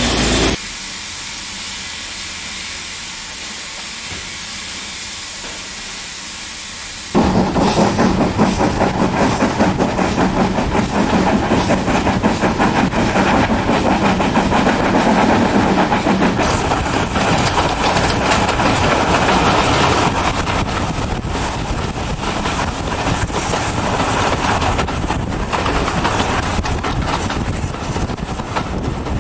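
Steam train: a steady hiss of steam for several seconds, then suddenly, about seven seconds in, a train running with loud, fast, dense clatter that goes on.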